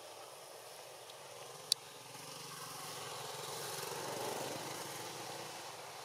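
A distant motor vehicle's engine passing, swelling to its loudest about four seconds in and then easing off. A single sharp click comes about a second and a half in.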